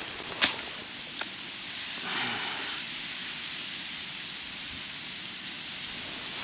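Steady hiss of a cold wind blowing over rippling pond water, with one sharp click about half a second in.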